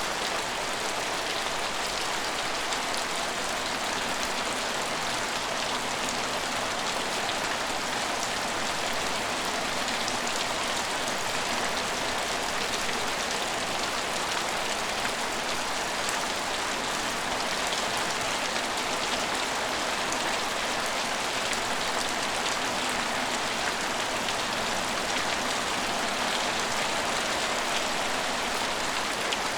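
Steady rain falling and pattering on hard surfaces, an even hiss with fine scattered drops and no change in level.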